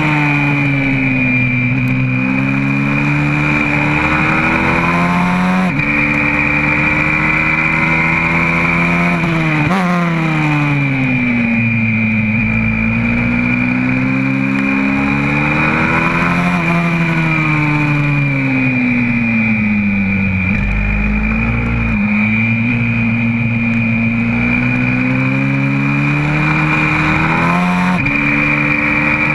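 Engine of a YCF 125cc four-stroke single-cylinder pit bike heard from on board, running hard on track. Its pitch climbs under acceleration and sinks when the rider eases off into corners, with several sudden jumps in pitch at gear changes. A steady high whine sits over it.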